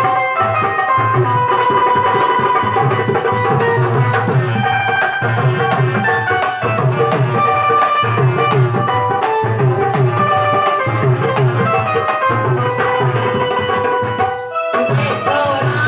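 Devotional bhajan music with tabla and a steady drum beat under held melodic notes, breaking off briefly near the end.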